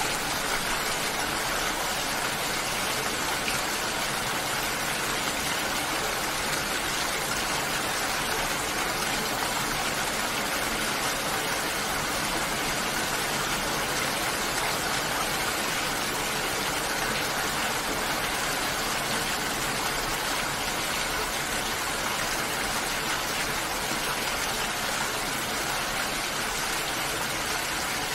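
Steady rain falling, a dense even hiss with no single drops or thunder standing out.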